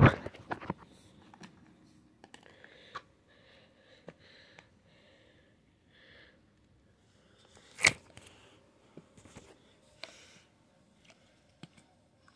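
Plastic slime and putty tubs being handled on a carpet: scattered soft knocks and clicks, with one sharp click about eight seconds in.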